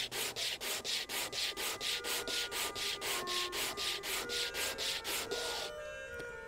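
Quick back-and-forth sanding strokes, about five a second, as a small wooden wedge for an organ reed pipe is rubbed down on abrasive paper to make it sit deeper. The strokes stop near the end as soft, sustained organ notes come in.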